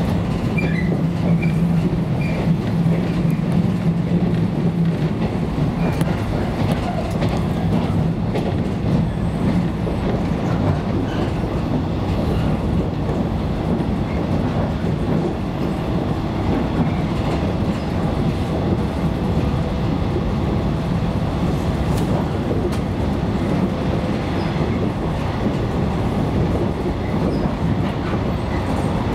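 Running noise heard from inside a 115 series electric train's carriage at speed: a steady rumble of wheels on rail. A low hum stands out for about the first five seconds and then fades into the rumble.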